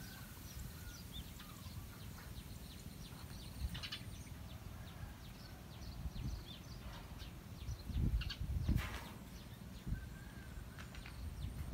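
Rural outdoor ambience: scattered short bird chirps over a steady low rumble, with a few louder bumps about four seconds in and again around eight to nine seconds.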